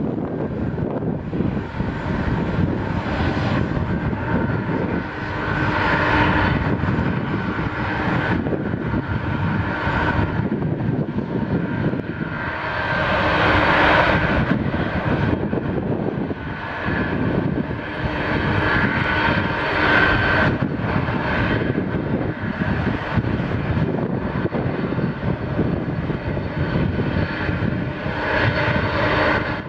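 Boeing 737-8 MAX jet taking off: its CFM LEAP-1B turbofan engines at takeoff thrust give a loud, steady roar with a whining tone, rising and falling in waves as the jet rolls down the runway and climbs away.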